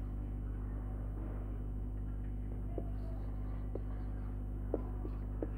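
Steady low electrical hum, with a few faint ticks and squeaks of a marker writing on a whiteboard.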